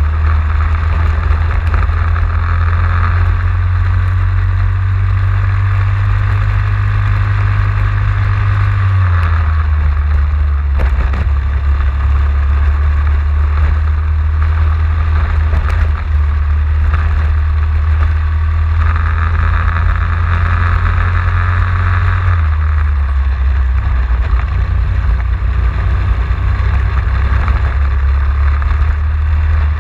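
Racing kart engine running hard at speed, heard onboard, its note steady for long stretches and dropping in pitch twice, about nine seconds in and again about twenty-two seconds in, as the kart slows for bends.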